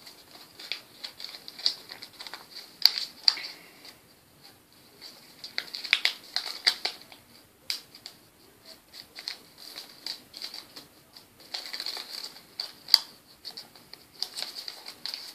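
Origami paper being folded and creased by hand: irregular crinkles, rustles and sharp paper crackles, with a few louder snaps about three, six and thirteen seconds in.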